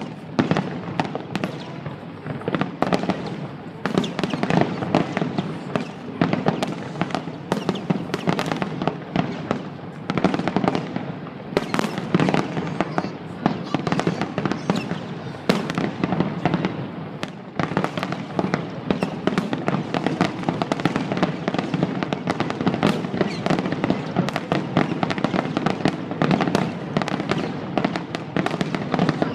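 A rapid, unbroken barrage of aerial fireworks bursting, many bangs a second overlapping one another: a fireworks finale in rapid succession.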